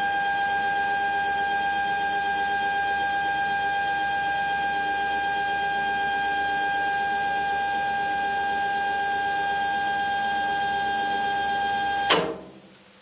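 Stepper motor driving a Hobbymat MD65 / Prazi SD300 lathe's lead screw, running at a steady high whine of several held pitches as it moves the carriage back to the zero position. It stops suddenly with a short knock about twelve seconds in as the carriage reaches its target.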